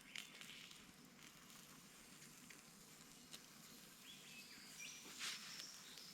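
Faint sizzling of halloumi cooking over a campfire, with a few small crackles and a brief louder hiss about five seconds in.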